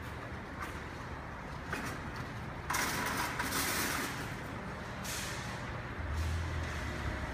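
Outdoor traffic background with a steady low rumble, broken about three seconds in by a sudden loud hiss that lasts over a second, with a shorter hiss about five seconds in and a low engine hum near the end.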